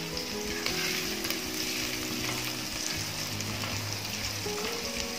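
Minced garlic sizzling steadily in hot butter in a saucepan, stirred with a silicone spatula.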